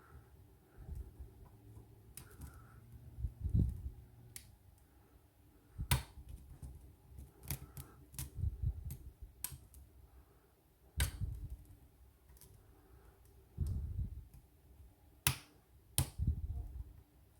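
Lock picking on a Scandinavian oval lock cylinder: a pick and tension wrench working the pins, giving a scatter of small sharp metallic clicks over low, irregular handling bumps.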